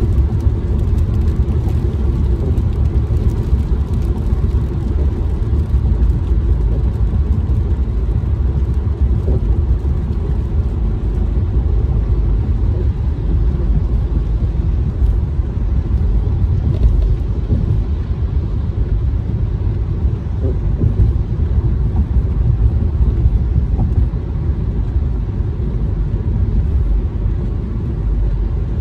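Steady low rumble of a car driving on a wet freeway in rain, heard inside the cabin: tyre and road noise on wet pavement.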